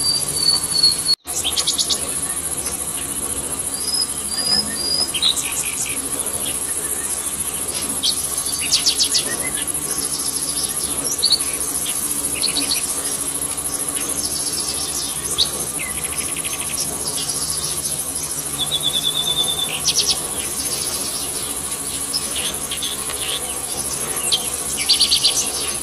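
Tropical forest ambience: a steady high-pitched drone of insects, with birds chirping and trilling on and off throughout.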